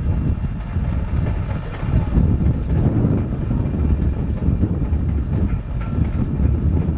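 Wind buffeting the microphone: a loud, uneven low rumble without any clear tone.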